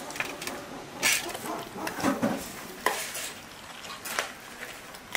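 Irregular clinks and scrapes of cutlery against dishes, a few sharp knocks a second or so apart.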